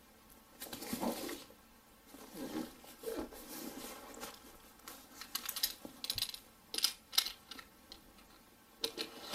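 A cardboard laptop box handled with nitrile-gloved hands: rustling and rubbing as it is set down and positioned, then a run of small sharp clicks and taps. Near the end, a utility knife slices through the box's seal sticker.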